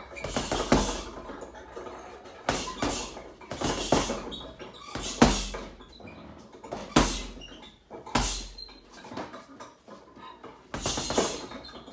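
Boxing-gloved punches landing on a hanging heavy bag: sharp thuds, singly or in quick pairs, about every second or so. Each hit is followed by a brief rattle from the bag's hanging hardware.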